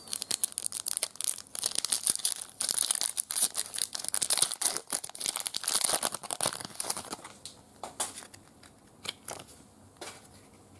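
Metallic foil wrapper of a 1996 Fleer Ultra X-Men Wolverine trading-card pack being torn open and crinkled by hand: a dense crackle for about seven seconds, then only a few faint clicks near the end.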